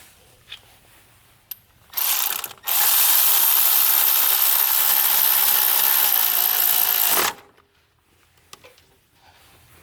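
A ratchet driving a 10 mm bolt back in: a short burst about two seconds in, then a steady run of about four and a half seconds that stops suddenly.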